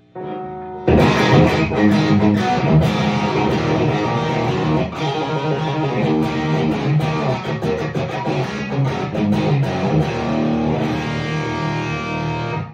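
Electric guitar played through a Fat Monday overdrive and Wolf Cub volume boost into a Marshall amp with a hot plate attenuator, giving a driven, crunchy tone. It starts faintly, the full playing comes in about a second in, and it stops abruptly at the end.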